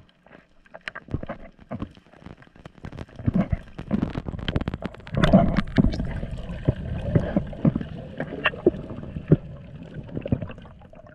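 Muffled underwater audio picked up by an action camera: water movement and bubbling with many scattered sharp clicks, getting louder and busier about five seconds in.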